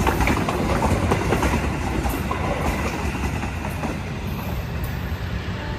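Passenger coaches of the Sri Tanjung train rolling past close by, the wheels clacking over the rail joints. The rumble and clacks fade from about four seconds in as the last coach moves away.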